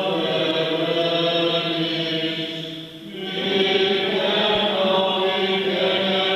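Byzantine-rite liturgical chant, sung on long held notes, with a brief pause for breath about three seconds in.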